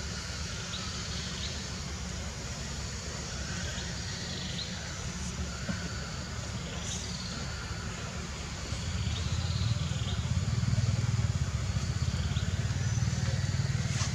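Outdoor ambience: a steady low rumble that grows louder about nine seconds in, under a hiss dotted with faint, short high chirps.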